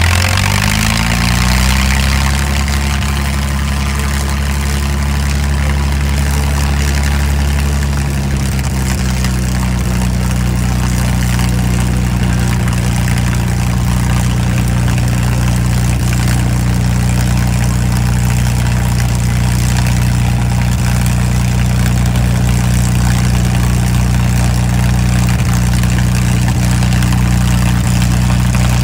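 Engine running loud and steady, its pitch rising over the first second or two as it speeds up, then holding, with a slight drop in pitch about eight seconds in.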